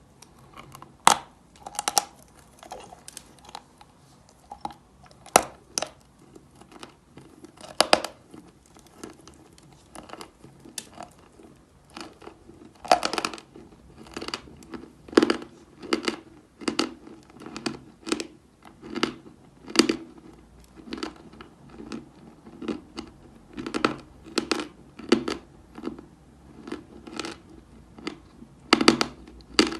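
Chalk crunching: sharp cracks and crumbly crunches, scattered at first, then coming about once a second through the second half.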